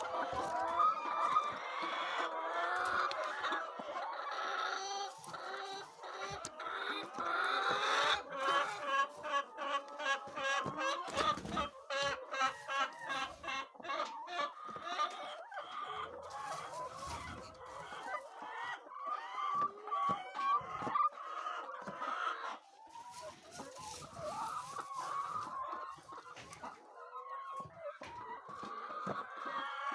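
A flock of hens clucking and calling steadily, many birds at once, with scattered knocks and rustles.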